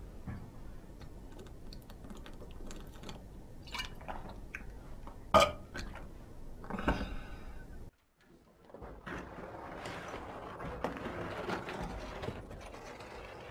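A man's short, harsh throat noise, "krkh!", sounding twice, the second longer, amid faint mouth and handling sounds. After a brief dead gap, several people shuffle and step along a stone cellar passage.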